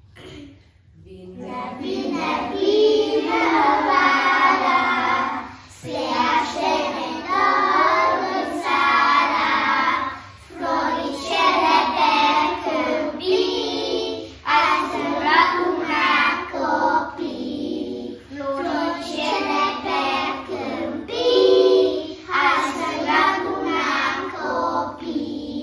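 A group of young kindergarten children singing a song together in unison, in sung phrases with short pauses for breath between them.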